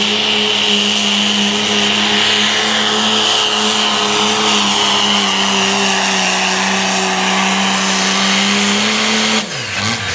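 Turbocharged diesel four-wheel-drive pickup at full throttle pulling a weight-transfer sled, its engine held at a steady high pitch with a high whistle above it. The engine note drops sharply about nine seconds in as the pull ends.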